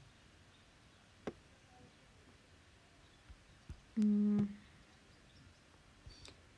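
Quiet room tone with a single click about a second in, then a short hum of a voice held on one pitch for about half a second near the middle, a hesitation sound between sentences.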